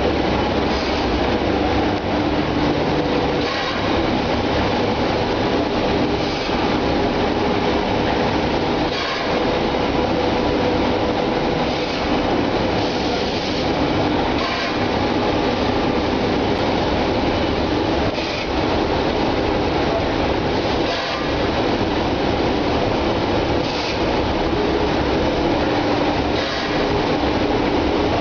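Egg tray production line machinery running: a steady mechanical din with a constant hum, and a brief swell in the noise about every three seconds.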